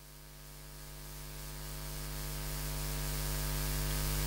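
Electrical mains hum with a stack of overtones from the microphone and sound system. It stays steady in pitch and grows gradually louder.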